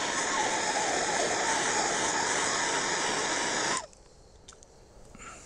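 Handheld gas torch burning with a steady hiss, shut off suddenly nearly four seconds in.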